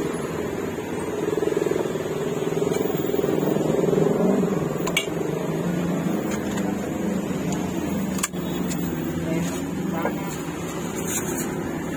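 A motor vehicle's engine running steadily close by, with a few sharp knocks.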